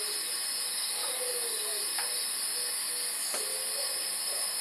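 Steady high-pitched hiss of a night insect chorus, with a couple of faint ticks about two seconds in and again near three and a half seconds.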